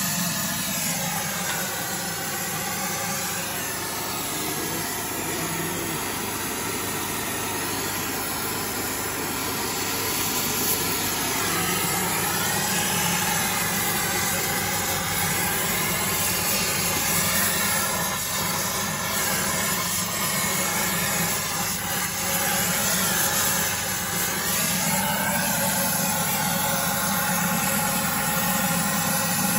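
Oxy-fuel torch flame hissing steadily while melting a Drill Tec carbide hardfacing rod onto the heels of steel horseshoes. Its tone drifts slowly up and down.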